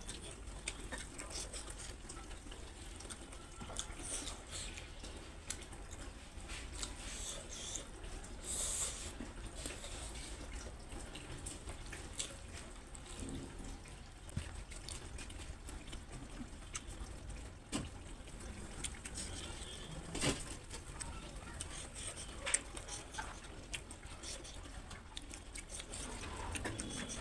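Close-up wet chewing and lip-smacking of a person eating rice with his hand, made of many small moist clicks and a few louder smacks.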